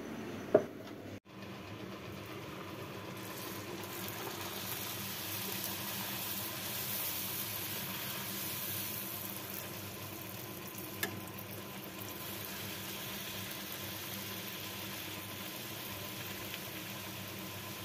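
A single knock, then, from about a second in, a puri deep-frying in hot oil in a kadhai: steady sizzling while a slotted spoon presses the puffing puri.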